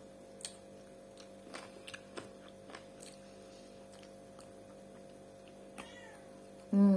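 Quiet chewing with scattered small mouth clicks over a steady electrical hum, then a short, loud vocal sound near the end.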